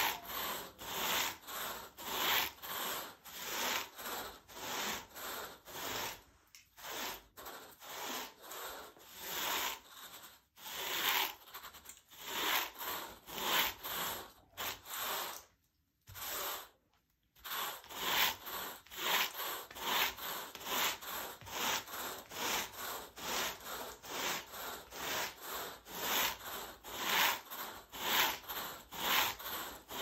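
Carpet rake dragged back and forth through thick carpet pile: a crunchy, scratchy rubbing, about two strokes a second, with a few short pauses and a longer one about halfway through.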